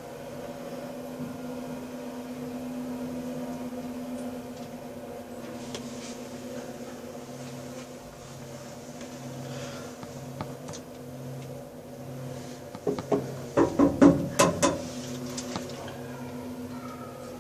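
Passenger lift car travelling down, its drive giving a steady hum with a lower tone that pulses on and off. A quick run of loud clunks and knocks comes near the end, lasting about two seconds.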